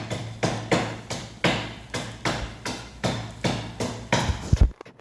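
Close-up chewing of a grilled pork belly and kimchi wrap: an even run of sharp crunches, about four a second, that stops suddenly near the end.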